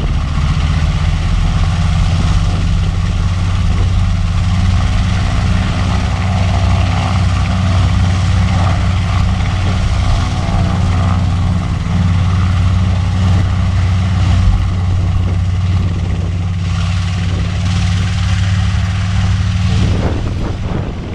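The twin Wright R-2600 Cyclone radial engines of a B-25 Mitchell bomber running steadily as the aircraft taxis slowly on the runway: a loud, deep, even drone.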